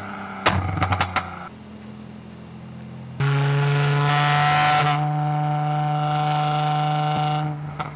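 Mercedes C43 engine revved in short blips with sharp exhaust pops and crackles, then dropping back to idle. About three seconds in it jumps to a loud, steady held rev that lasts about four seconds before falling away near the end.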